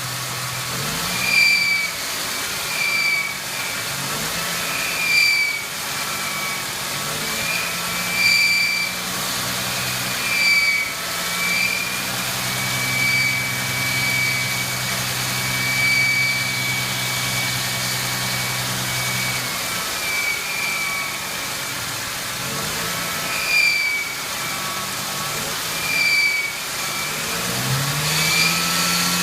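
1999 Ford Mustang 3.8-litre V6 running, with a high-pitched squeal from the engine that comes and goes in short chirps every second or two and holds steady for several seconds in the middle. The engine speed rises briefly a few times.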